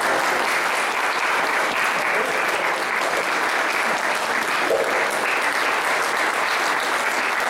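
Audience applauding, dense and steady clapping.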